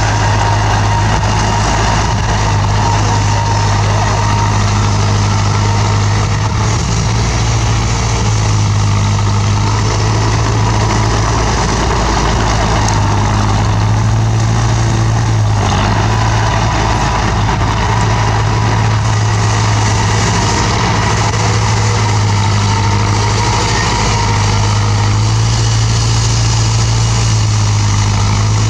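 Bulldozer's diesel engine running steadily: a loud, constant low hum that swells slightly now and then, with no pauses.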